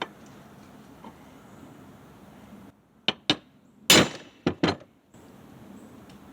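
Hammer tapping a 1/2-inch transfer punch through a bracket's bolt hole to mark a hole centre on a 3/16-inch steel plate: about five sharp metal taps in quick succession, about three seconds in.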